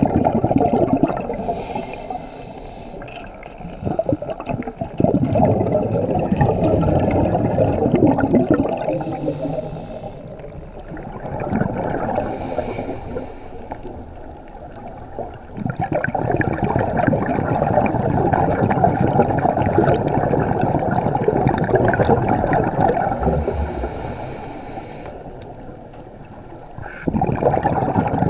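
Scuba divers breathing through their regulators, heard underwater: long bursts of exhaled bubbles, several seconds each, separated by quieter gaps while they breathe in. The bubbling is muffled, with little above the low and middle range.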